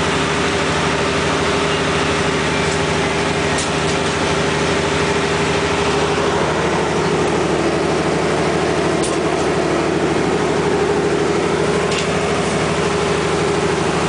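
Fishing boat's engine running steadily under way, a constant drone with a noise of water and wind over it.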